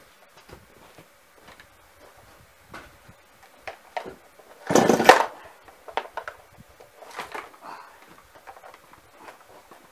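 One sharp yank on a chainsaw's pull-cord starter about halfway through, a short whirring rasp, with the engine not catching. Faint clicks and knocks of handling the saw come before and after.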